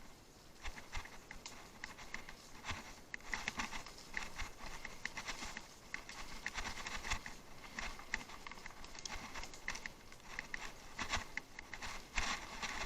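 Bicycle riding over rough off-road ground: a dense run of irregular clicks, rattles and crunches from the tyres and the bike's frame.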